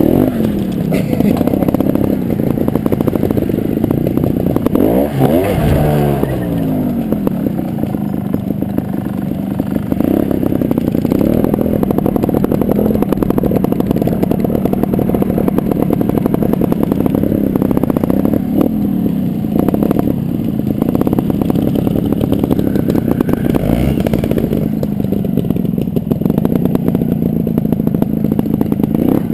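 Gas Gas TXT300 Raga trials bike's two-stroke single-cylinder engine running at low revs while riding, with short throttle blips where the revs rise and fall quickly, the biggest about five seconds in and near the end.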